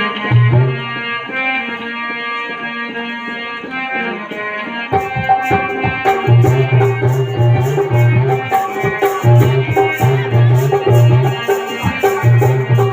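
Instrumental music: a held melody on a sustained, keyboard-like instrument for about five seconds, then a steady drum rhythm with a rattle joins in and carries on.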